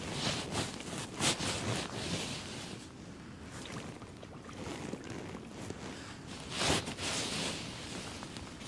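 Outdoor wind noise on the microphone, a steady rushing haze, with a few brief louder rustles about a second in and near seven seconds.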